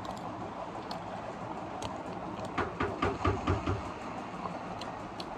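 Steady outdoor background noise, with a few syllables of indistinct voices about halfway through and a few light clicks.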